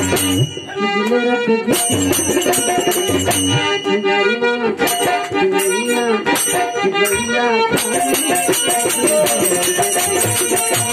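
Indian devotional folk song (Devi geet) performed live: a man's voice singing into a microphone with harmonium, over a steady percussion beat and a shaken rattle.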